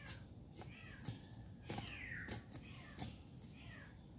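A hand trowel scraping and knocking into garden soil, a series of short sharp strokes, with faint short falling animal calls in the background.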